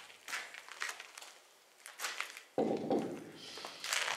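Footsteps scuffing and crunching as someone walks, with short rustles in between. A louder scuff starts suddenly about two and a half seconds in.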